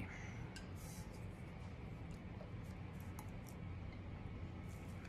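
Quiet crafting sounds over a steady low hum: faint scattered ticks and light rubbing as a paintbrush works ink onto a tumbler and the tumbler is handled over paper towels.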